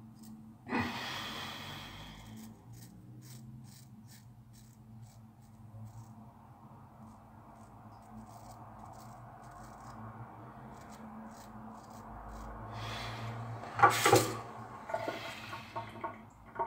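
Shavette razor blade scraping through a week's stubble in short strokes, giving faint fine crackles. A loud breath through the nose cuts in about a second in, and another cluster of louder nasal breathing sounds comes near the end.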